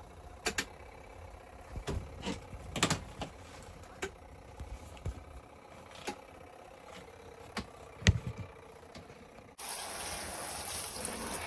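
Costway twin-tub washer running a rinse cycle: a faint steady motor hum with scattered knocks. Near the end it gives way suddenly to a louder, even wash noise.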